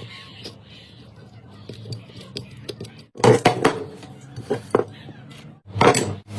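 Metal clinks and knocks from tools and fan parts being handled, with clusters of louder knocks in the second half.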